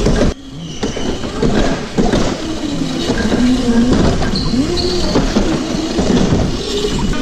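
Razor Crazy Cart electric drift kart driving over wooden skatepark ramps: the motor whine rises and falls with speed over the rumble and scrub of its small wheels, with a brief high squeal partway through.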